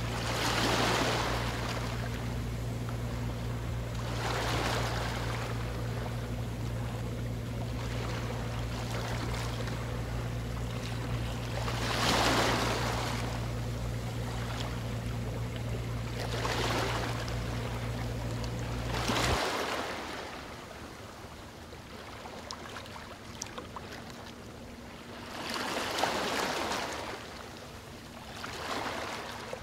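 Rushing water that swells and fades every few seconds, over a steady low hum that stops abruptly about two-thirds of the way through.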